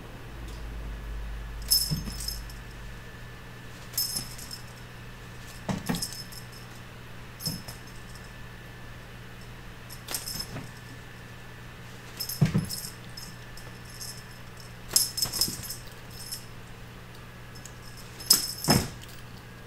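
A dangling cat toy jingling in short metallic bursts every two seconds or so as kittens leap and bat at it, several bursts with a soft thud of a kitten landing on the floor.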